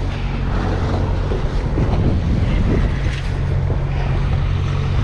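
Boat engine idling with a steady low hum, under wind noise on the microphone.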